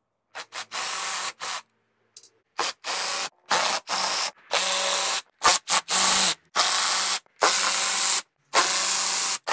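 Cordless drill-driver backing out fairing screws, run in about a dozen short bursts of up to a second each, with a steady motor hum under a loud whirr. The bursts start and stop sharply.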